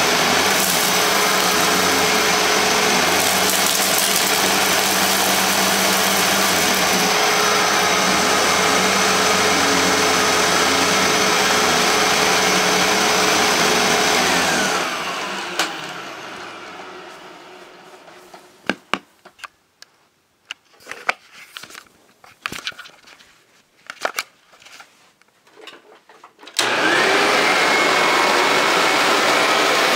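Hoover WindTunnel self-propelled bagless upright vacuum (model U6630) running steadily, then switched off about halfway through, its motor winding down in pitch to quiet. A few clicks and knocks follow. Near the end it is switched on again, and the motor spins up with a rising whine.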